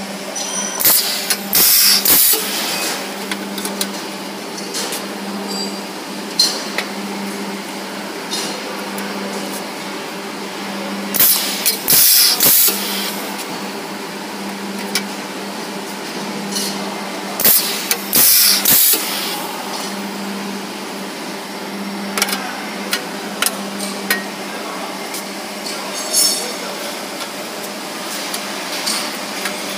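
C-frame rivetless riveting (clinching) machine: a steady hum while it runs, broken by three groups of two or three short, loud strokes as the punch presses clinch joints into the corners of a galvanized sheet-metal frame. A few lighter clicks of sheet metal being handled come near the end.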